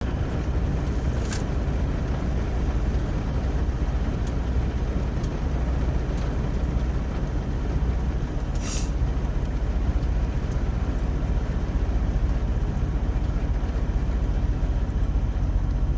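Rain pouring steadily, an even hiss over a steady low rumble, with two sharp ticks about a second and about nine seconds in.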